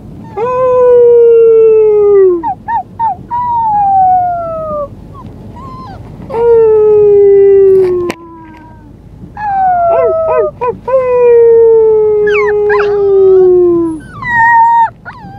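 Siberian husky puppy howling: a series of long howls that each slide slowly downward in pitch, with short yips between them.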